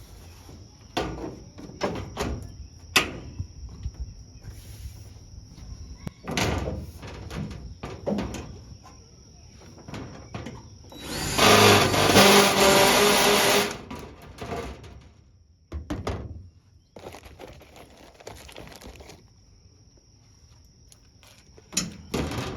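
Scattered knocks and clatter of tools and car body panels being handled, with a power drill running for about two seconds near the middle, the loudest sound. A faint steady high whine sits underneath.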